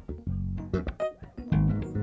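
Electric bass guitar and keyboard playing together in a live jam: plucked bass notes with keyboard notes above them, resuming after a brief break right at the start.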